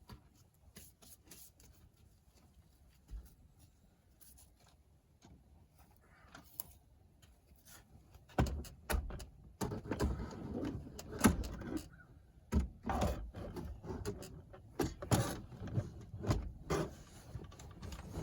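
Hand-handling noise from working on a car's seat belt latch: a few faint clicks at first, then from about eight seconds in a busy run of knocks, clicks and rustling as parts are moved and fitted.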